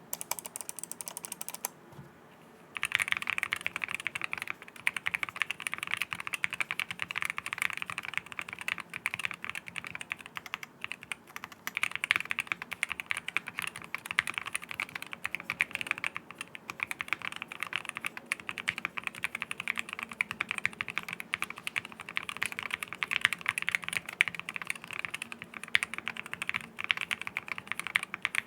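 Mechanical keyboard with Akko Rosewood linear switches on an aluminium plate, fully foamed, being typed on rapidly: a dense, continuous stream of deep, muted keystrokes that starts about three seconds in.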